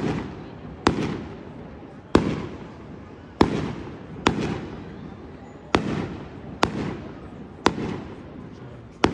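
Fireworks display: aerial shells bursting one after another, about one sharp bang a second, each followed by a rolling echo that fades before the next.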